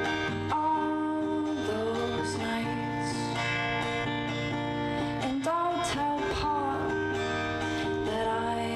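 A young woman singing her own song live, accompanying herself on a strummed acoustic guitar, with a small rock band of electric guitar, bass and drums backing her.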